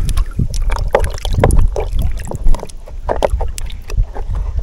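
Jet ski being slid off its trailer into the water: an uneven low rumble with irregular knocks and clunks, and some water sloshing.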